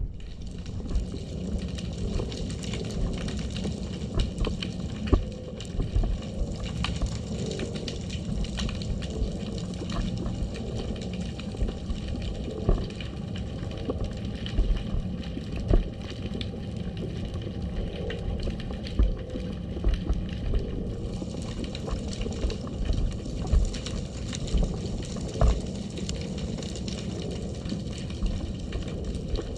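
Underwater sound picked up by a submerged camera: a steady muffled rush of water, broken by many scattered short clicks and knocks.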